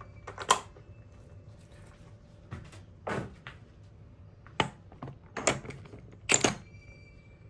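A handful of separate metallic knocks and clinks, about five spread out, from a socket and tools being handled and fitted onto a large nut.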